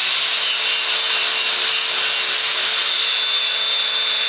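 Cordless angle grinder running steadily under load, its disc grinding down the wood of a Christmas tree's trunk, with a constant high whine.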